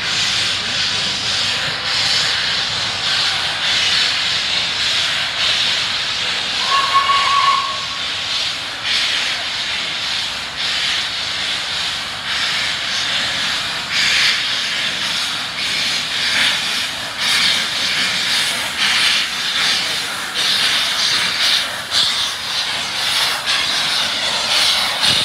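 LNER A3 Pacific steam locomotive 60103 Flying Scotsman moving with its cylinder drain cocks open, steam hissing loudly in surges that come more often from about halfway. A short single whistle blast sounds about seven seconds in.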